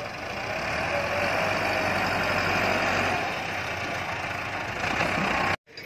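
Farm tractor's diesel engine running under load as its front blade pushes into a pile of dirt, getting louder about a second in. The sound cuts off abruptly near the end.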